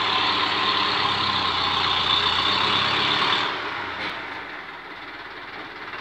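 UTB 650 tractor's diesel engine running, loudest for the first three and a half seconds, then dropping to a quieter, steady run.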